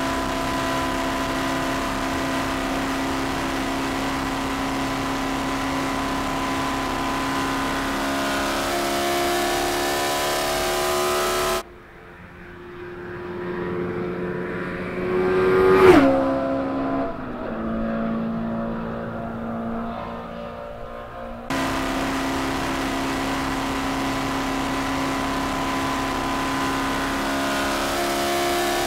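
Jiotto Caspita supercar's engine running steadily at speed, heard from behind. About twelve seconds in the sound cuts to a pass-by: the engine note climbs as the car approaches, peaks loudly about sixteen seconds in and drops in pitch as it passes and fades. About twenty-one seconds in it cuts back to the steady running note, which rises slightly near the end.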